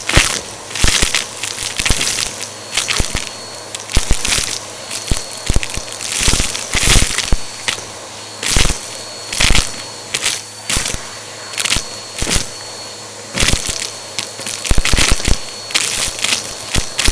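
Vacuum cleaner crunching and crackling as it sucks up a dry crunchy mess mix, with irregular clusters of sharp cracks over the steady run of the motor.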